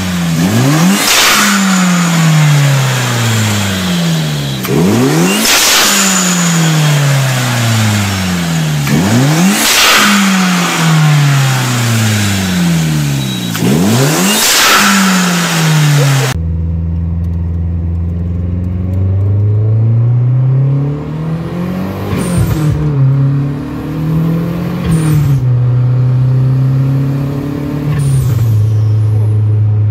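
Turbocharged car engine blipped four times, each rev falling away as a blow-off valve vents a short sharp hiss when the throttle snaps shut. After a cut, the engine pulls up through the revs under acceleration, heard from inside the cabin, with three more blow-off valve hisses at the gear changes.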